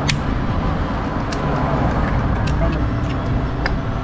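Wind buffeting the microphone in a steady low rumble, with a few sharp clicks of oyster shells knocking together as they are handled.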